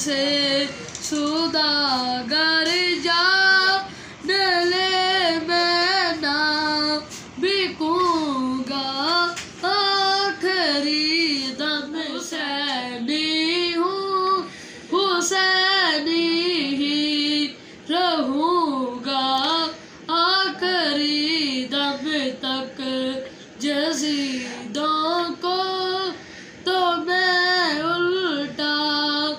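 A boy singing solo and unaccompanied, his voice winding up and down through long, ornamented phrases with short breaks for breath between them.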